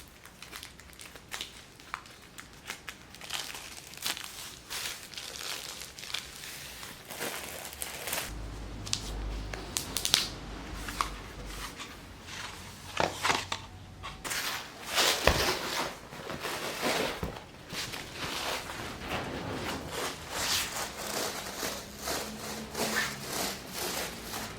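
Irregular rustling and crinkling with light clicks and knocks, like something being handled, louder about halfway through.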